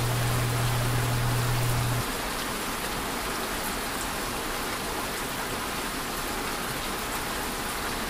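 A steady, even hiss like light rain. A low hum runs under it for about the first two seconds, then stops.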